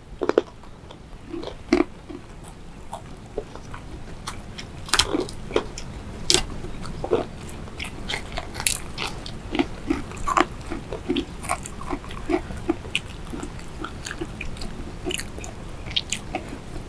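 Close-miked eating sounds: chewing and biting with many short, irregular crunches and mouth clicks as food is eaten by hand.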